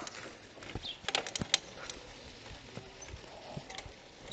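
A bicycle rattling over a rough dirt road: irregular sharp clicks and knocks, bunched together about a second in with a few scattered later, over faint background noise.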